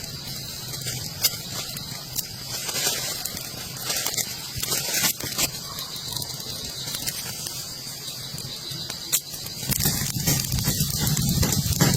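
Rain pattering steadily, with scattered sharp taps of drops. A deeper rumbling noise builds up near the end.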